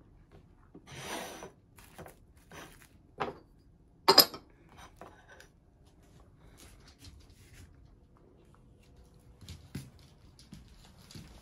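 Cling film rustling and a plate being handled, with a few sharp clicks and one loud clack about four seconds in.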